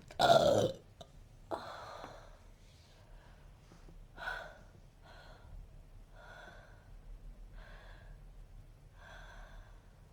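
A person hiccuping: one loud voiced hiccup falling in pitch at the start, then a breath, another hiccup about four seconds in, and fainter hiccups and breaths every second or so.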